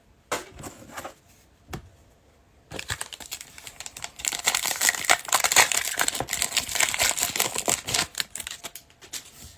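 Trading card pack wrapper being torn open and crinkled, a dense crackly rustling from about three seconds in, after a few light handling clicks.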